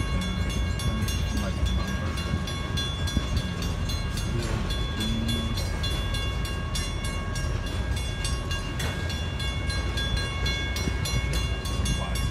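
Freight train of covered hopper cars rolling past at a grade crossing, wheels clicking steadily, with a continuous high ringing from the crossing's warning signal.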